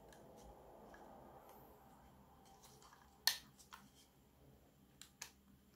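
Foldable plastic phone stand being handled and folded, its hinges clicking sharply a few times, the loudest click about three seconds in. Before that, a faint rustle of gloved hands on the plastic.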